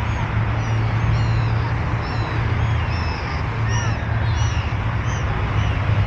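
A flock of gulls calling on and over a lake: many short, high cries overlapping at irregular intervals, over a steady low rumble of wind and traffic.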